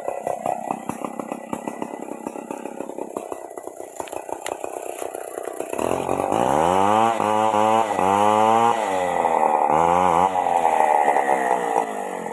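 Stihl MS 381 two-stroke chainsaw idling with a rapid ticking, then throttled up about six seconds in and running hard, its pitch rising and dipping several times.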